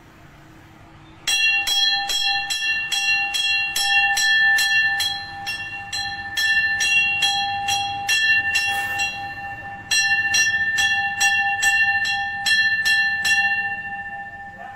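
Temple bell rung rapidly and evenly, about three strokes a second, each stroke ringing on into the next. It starts about a second in, breaks and starts again around ten seconds in, and stops a little before the end, the ringing fading away.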